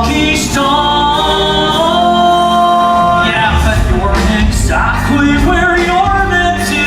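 Show-tune singing with band or orchestral backing, the voices holding long notes over a steady low accompaniment.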